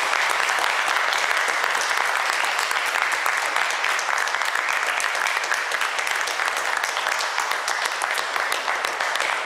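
Audience applauding, dense and steady clapping.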